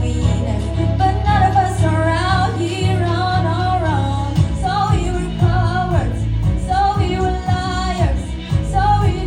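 Pop song with a woman singing over a steady bass and beat; the bass turns to a pulsing pattern about four seconds in.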